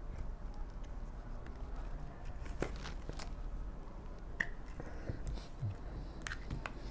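Faint scattered clicks and taps of small objects being handled on a workbench, over a low steady hum.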